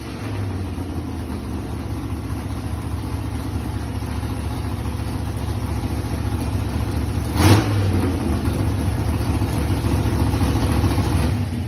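Gasser hot rod's engine idling steadily, with one quick throttle blip about two-thirds of the way through.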